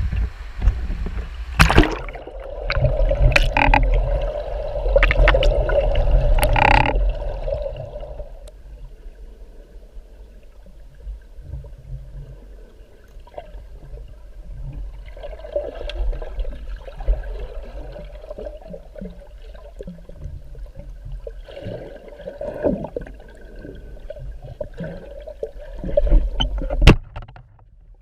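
Water gurgling and sloshing close to the microphone, louder in the first few seconds and again in patches later, with a few sharp knocks, the loudest one near the end.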